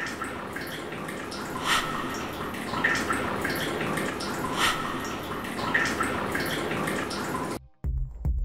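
Water running and splashing steadily, with several louder drops plopping at irregular intervals. It cuts off suddenly near the end, and soft music with sustained notes begins.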